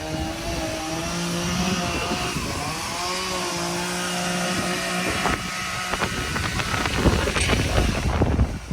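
A motor running at a steady pitch, which shifts slightly a couple of times, joined about five seconds in by a dense spell of crackling and clattering.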